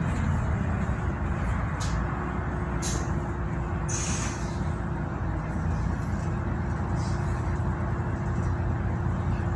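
Bus engine and road noise heard from inside a moving bus, a steady low drone. A steady whine joins about two seconds in, and there are a few short hisses in the first half.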